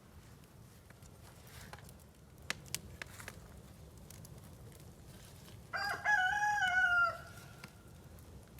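A rooster crows once, about six seconds in, a single call of just over a second that drops in pitch at the end. A few faint clicks come before it.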